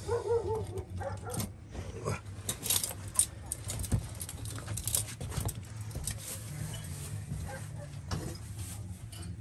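A dog whines briefly at the start, then scattered clicks and knocks of things being handled sound over a low steady hum.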